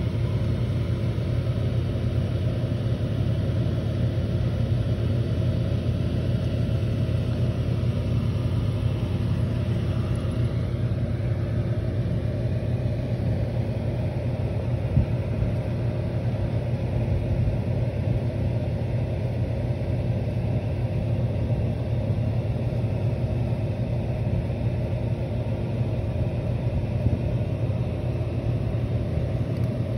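Air cooler's fan running: a steady low hum and rumble that holds constant.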